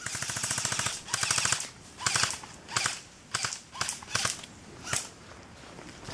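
Airsoft guns firing on full auto: a burst of about a second of rapid clicking shots, a shorter burst right after, then a string of short bursts of a few shots each.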